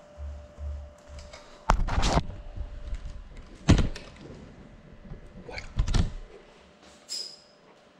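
Handling noise from an FPV drone's onboard camera being picked up and moved by hand: low thumps, then sharp knocks about two, four and six seconds in, and a brief high tone near the end.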